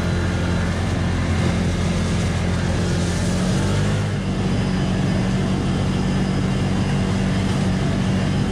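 Side-by-side UTV's engine running steadily under way, with a steady hiss over the drone. The engine note changes slightly about three and a half seconds in.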